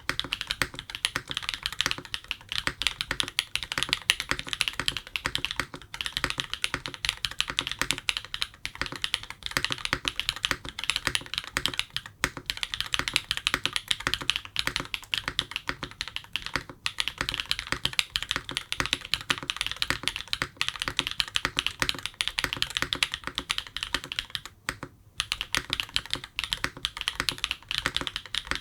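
Continuous fast typing on a TET custom mechanical keyboard with a carbon fibre plate, franken switches of Cherry MX housings with 13.9 mm POM stems, and Owlab v3 stabilizers. A dense stream of keystroke clacks, broken by short pauses every few seconds.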